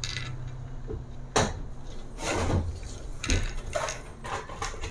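Small plastic clicks, knocks and rubbing of a wireless optical mouse being handled as its USB receiver is fitted into the slot under the battery cover: a sharp click about a second and a half in, a short scraping rub, then a run of small clicks near the end.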